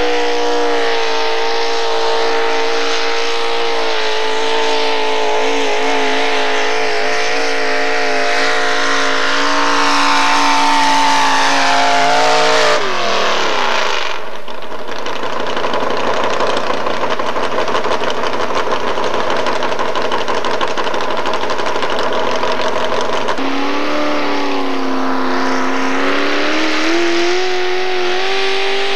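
Modified four-wheel-drive pulling truck's engine held at high revs under load as it drags the sled; about thirteen seconds in the revs fall away steeply. Engine noise carries on, and from about three-quarters of the way through a truck engine's revs climb again.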